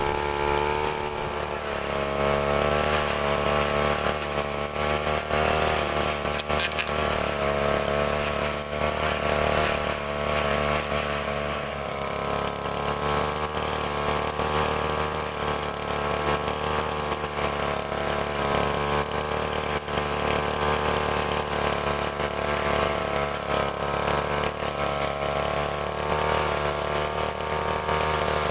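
STIHL FR3001 backpack brush cutter's small two-stroke engine running with a steel weed trimmer head, its pitch shifting a little up and down as it works.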